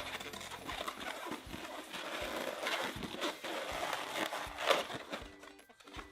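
Inflated latex balloons rubbing and squeaking as they are handled and twisted, a dense scratchy rubbing with small squeaks that dies down about five seconds in.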